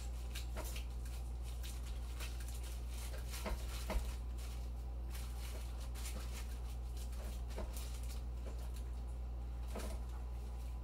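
Soft rustling and a few light taps as gloved hands press raw meatloaf mixture down into a plastic-lined slow cooker, over a steady low hum.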